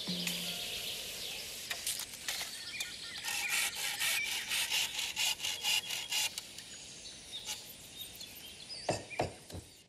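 A hand saw cutting through green bamboo, in a run of quick rhythmic strokes about four a second in the middle, over a steady outdoor hiss. A few sharp knocks come near the end.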